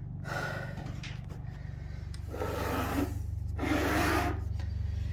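Three short rubbing, rushing noises over a steady low hum, the last two about a second apart.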